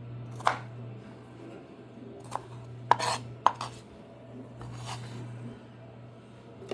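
Knife knocking on a cutting board about five times at irregular intervals as vegetables are cut, over a steady low hum.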